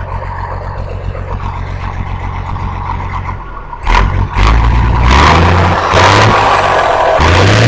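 Vehicle engine idling with a steady low rumble, then revved hard in several quick blips, each rising in pitch, starting a little under four seconds in.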